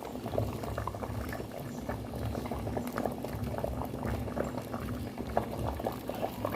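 A pot of feijoada bubbling on the stove, with irregular small pops over a low, steady simmer.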